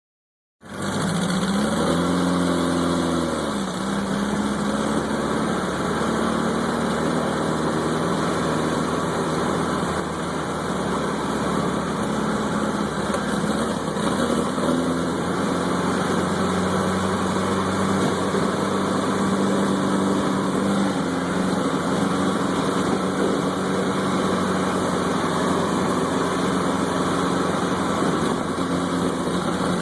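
Off-road vehicle's engine running, heard from the passenger's seat: it rises briefly in pitch about two seconds in, then settles to a steady drone over a constant hiss.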